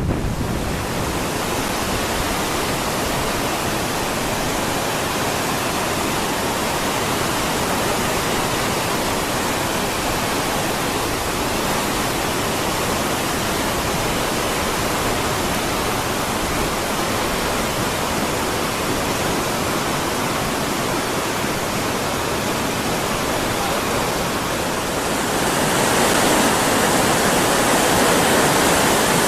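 Waterfall rushing in a steady roar of falling water, growing louder and brighter about 25 seconds in.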